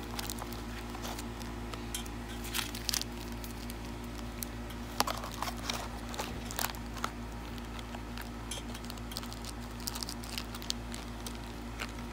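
Plastic-wrapped Pokémon card packs crinkling and clicking as they are handled and slotted into a cardboard booster box, in scattered bursts that are busiest about 3 seconds in and again around 5 to 7 seconds in, over a steady low hum.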